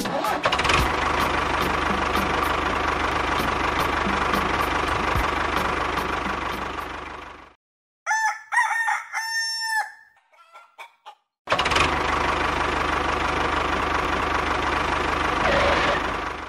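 A mini tractor's motor runs steadily for about seven seconds and stops. After a short silence a rooster crows once, and a second or so later the motor starts again and runs steadily to the end.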